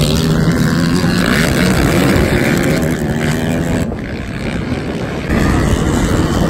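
Racing ATV (quad) engines running hard, their pitch rising and falling with the throttle. The sound eases off a little about four seconds in and comes back louder just after five seconds.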